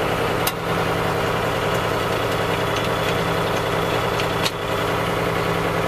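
Tractor engine idling steadily, just before it pulls off with a front-mounted roller crimper; a couple of light clicks sound over it.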